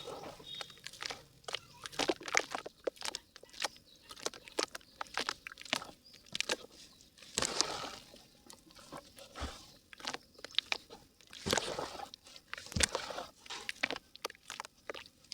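Dry yellow mud crumbling in a clay pot: irregular sharp crackles and crunches, with a few short gritty rustles.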